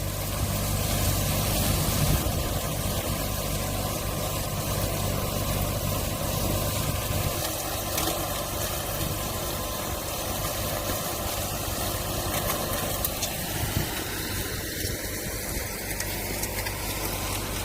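JH-GC140 garlic stem cutting machine running with a steady mechanical drone and hum.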